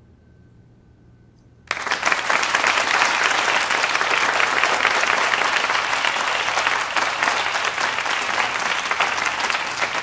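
Audience applause breaking out suddenly after a brief hush, about two seconds in, and going on at full strength, with no sign of dying down.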